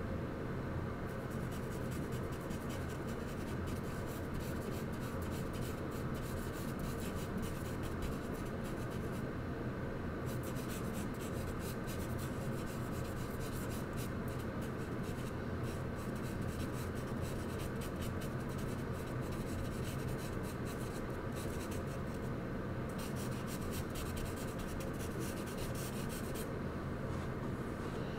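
Charcoal scratching and rubbing on paper in quick, dense strokes, with short pauses about nine seconds in and again near twenty-three seconds, stopping shortly before the end. A steady low hum lies underneath.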